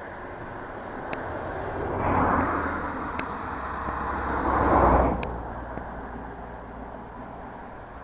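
Rushing whoosh of a huge flock of small birds' wings sweeping low overhead, swelling twice, the second rush about five seconds in the louder, then fading.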